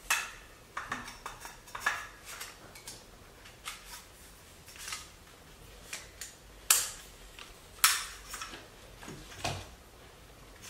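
Shooting-stick leg sections being handled and fitted together: a string of separate clicks and knocks as the parts slide into their sleeves and clip into place. The two loudest, sharpest clicks come about two-thirds of the way through.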